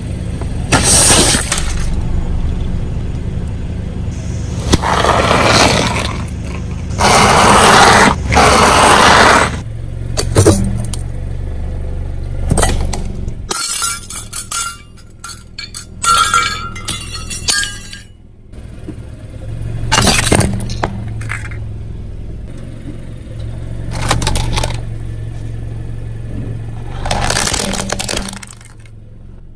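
A car tyre rolling over and crushing a run of objects: loud cracking and bursting, a stretch of metallic clinking and scraping from a stainless-steel drip coffee filter, and plastic cracking near the end. The car's engine runs low underneath.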